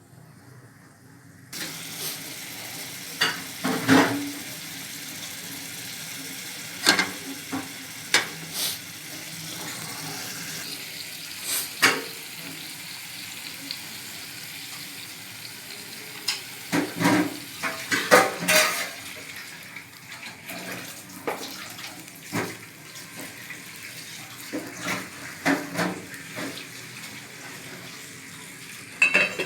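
Kitchen sounds: pots, lids and utensils clinking and knocking, many times and in irregular bursts, over a steady hiss.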